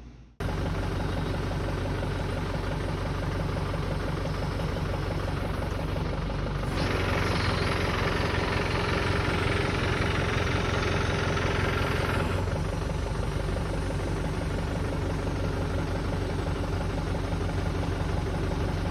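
Tractor engine running steadily. From about seven to twelve seconds in, a louder rushing sound is added on top.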